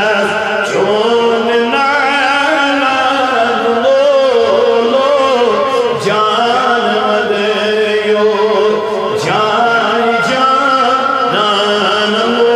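A man chanting a Kashmiri naat (devotional poem in praise of the Prophet) into a microphone, one melodic voice sliding up and down through long, ornamented phrases with barely a pause.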